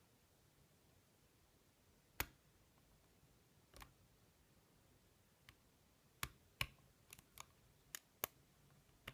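Lock pick working the pins of a Yale 6-pin euro cylinder during single-pin picking: about ten sharp, faint clicks at uneven intervals, coming closer together in the second half.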